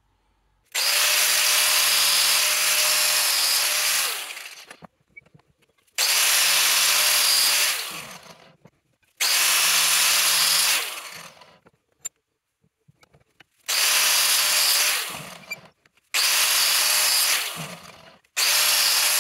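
Angle grinder cutting diagonal channels into the cork friction linings of a moped's clutch, which is clamped in a vice. The slots are meant to change the clutch's friction and move its shift point. The grinder is run six times in short bursts: each starts abruptly with a steady motor whine, then winds down before the next.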